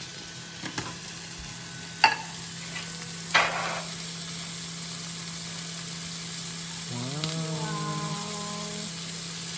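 Food sizzling steadily in a hot frying pan, with a few sharp knocks in the first few seconds. A short pitched sound rises and then holds about seven seconds in.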